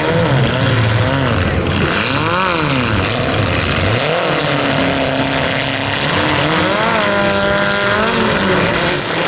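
Demolition derby compact cars' engines running and revving over a steady noise: one revs up and straight back down a couple of seconds in, and another climbs, holds high for about a second, then drops back near the end.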